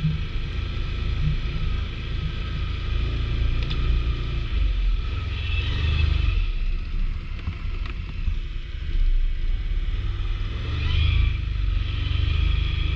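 Big-bore ATV engine running under load, its low rumble swelling and easing with the throttle.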